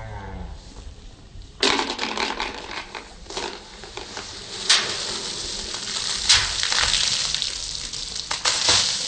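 Diet soda geyser erupting from a bottle after Mentos are dropped in: a sudden loud fizzing, spraying hiss starts about one and a half seconds in and crackles on with a few sharp spatters.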